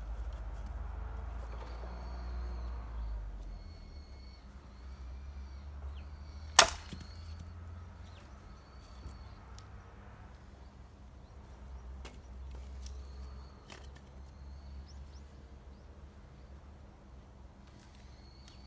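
One sharp crack of an axe blow splitting a piece of firewood, about a third of the way in, followed later by a couple of faint knocks.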